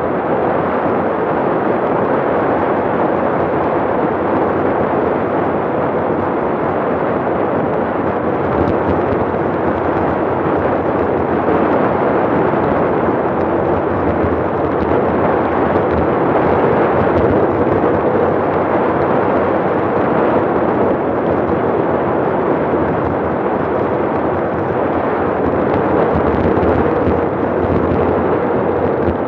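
Loud, steady wind rush buffeting the camera's microphone as a bicycle descends at close to 40 mph.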